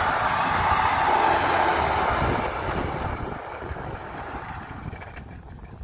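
Engine of a small tracked rice-carrying crawler running: a steady, rough mechanical noise that fades away over the second half.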